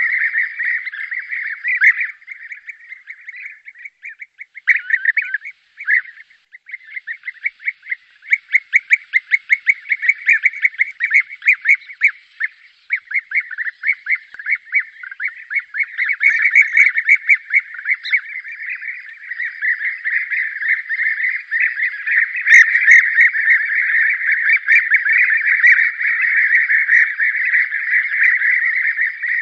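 A flock of European bee-eaters calling: many overlapping, rapidly trilled calls in a continuous chatter, sparser for a few seconds early on and then dense. It is a mixed bee-eater call recording used as a hunting lure to draw the birds in.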